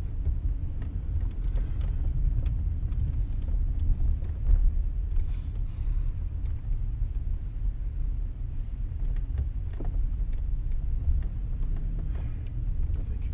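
Steady low rumble of a minivan driving, heard from inside the cabin, with a few faint clicks scattered through it.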